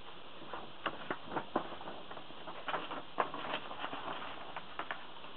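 Paper poster being handled and folded: irregular crackling and rustling strokes, the sharpest about three seconds in.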